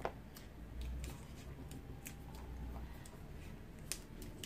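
Hands working electrical insulating tape and wires: faint scattered clicks and rustles, with a sharper click at the start and another near the end.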